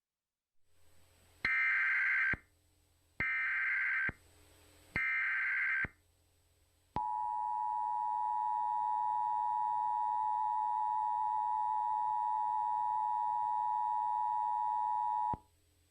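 Emergency Alert System alert tones: three short bursts of warbling SAME header data, each just under a second, then a steady two-tone attention signal held for about eight seconds before it cuts off. Together they signal that an emergency alert message is about to be broadcast.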